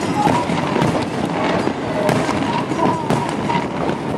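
Aerial fireworks shells bursting overhead: a dense, continuous run of sharp bangs and rapid popping.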